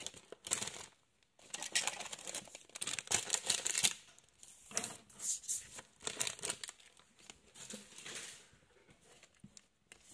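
Trading cards and crinkly plastic packaging being handled and pushed aside on a table, rustling and crinkling in irregular bursts with short pauses.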